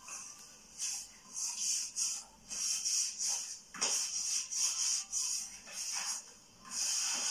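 Hand squeezing and kneading flour-and-water dumpling dough in a bowl: an irregular run of rubbing, squishing sounds, a couple a second.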